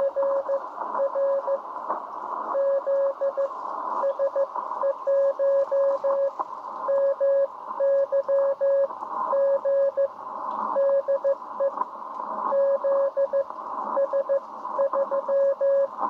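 Morse code (CW) received on a ham radio transceiver and heard through its speaker: one steady tone keyed on and off in dots and dashes, over a constant hiss of band noise.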